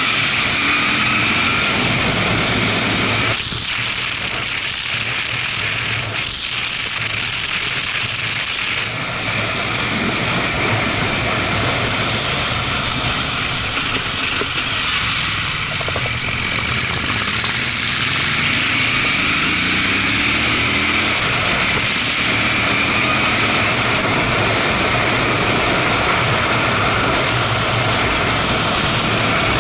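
Moto Guzzi California 1400's V-twin engine pulling uphill, easing off for a while about three seconds in and picking up again, its pitch rising as it accelerates near the start and again about twenty seconds in. Heavy wind rush on the microphone runs throughout.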